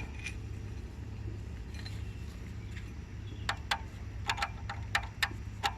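Light metallic clicks and clinks of engine parts being handled, irregular and starting a little past halfway, over a steady low hum.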